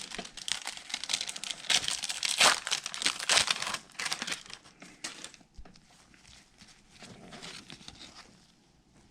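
A trading-card pack wrapper cut open with scissors and crinkled as it is pulled apart. The dense crackling is loudest for the first five seconds, then fades to lighter rustling.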